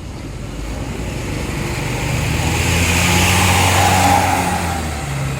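Tour bus driving past, its engine and tyre noise swelling to a peak about three to four seconds in, then easing off.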